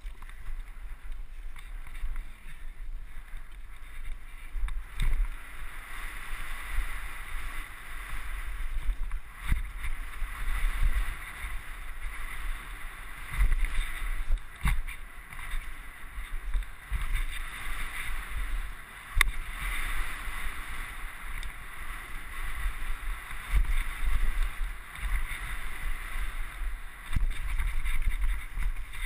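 Mountain bike riding fast down a gravel and dirt trail: wind buffeting the microphone, with the steady crunch and rattle of tyres over loose stones and occasional knocks as the bike hits rocks.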